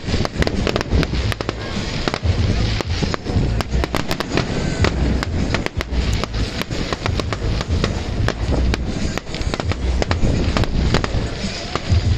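Fireworks display: a dense, continuous run of sharp cracks and bangs, many a second, over deep booming rumbles.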